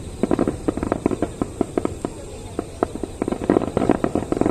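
Fireworks finale: a dense, irregular run of crackling pops and bangs from bursting shells.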